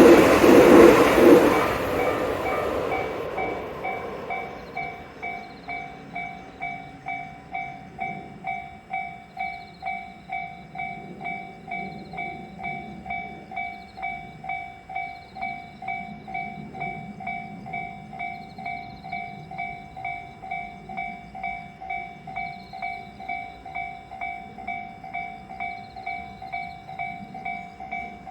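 A train passes and dies away over the first few seconds, then a Japanese level-crossing warning bell rings on steadily at about two dings a second, signalling that the crossing is still closed.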